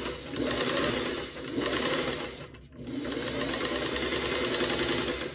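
Sewing machine running as it stitches a seam, with a short pause about two and a half seconds in before it runs on again.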